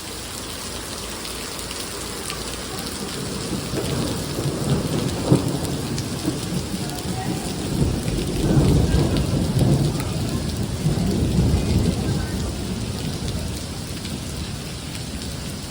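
Heavy rain pouring steadily, with a long rolling rumble of thunder that builds about a quarter of the way in, is loudest past the middle and fades away near the end.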